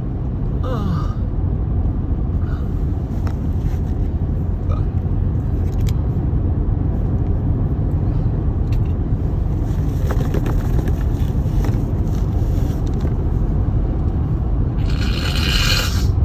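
Steady low road rumble inside a moving car, with a few faint clicks and, near the end, a short burst of rushing noise lasting about a second.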